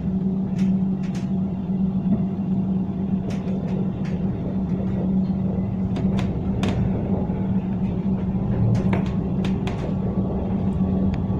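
Tram running along the street, heard from inside the passenger cabin: a steady rumble with a constant low hum and occasional sharp clicks.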